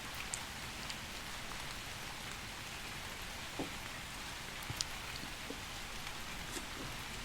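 Gentle rain falling steadily, an even patter with a few faint ticks of single drops.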